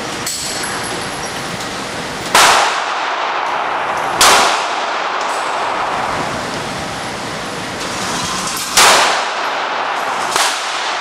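Four 9mm handgun shots at uneven intervals, the last one softer, each echoing in the indoor range, over a steady hiss.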